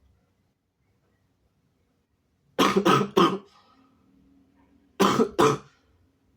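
A sick person coughing: three coughs in quick succession about two and a half seconds in, then two more about five seconds in.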